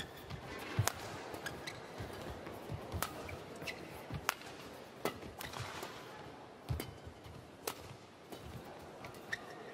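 Badminton rally: the sharp crack of rackets striking the shuttlecock, about seven hits spaced one to two seconds apart as the players trade shots, over steady background noise from the arena.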